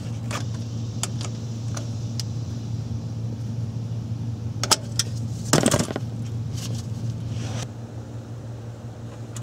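Scattered metallic clicks and clinks from hands refitting a transmission oil cooler hose and metal line, with a louder cluster about five and a half seconds in, over a steady low hum.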